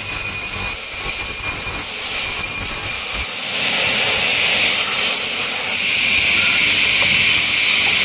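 Aluminum corner connector cutting saw running, its blade cutting through a stack of aluminum profiles with a steady high-pitched screech. A thin high whine over it stops about six seconds in.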